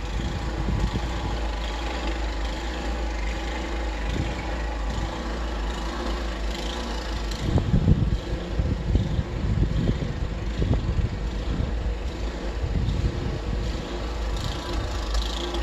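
An engine running steadily, its hum holding several constant tones over a low rumble that surges irregularly.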